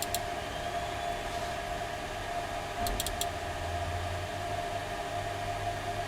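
Steady whirring hum of electronic equipment cooling fans, with a constant mid-pitched tone. Two quick runs of three or four small sharp clicks come near the start and about halfway.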